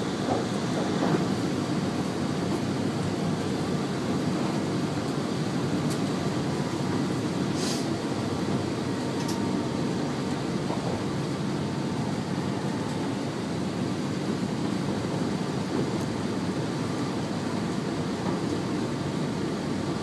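Train running at speed, a steady rumble of wheels on rails heard from inside the driver's cab, with a brief hiss about eight seconds in.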